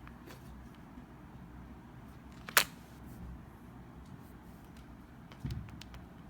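A single sharp click about two and a half seconds in and a duller thump near the end, with a few faint ticks over a low steady hum.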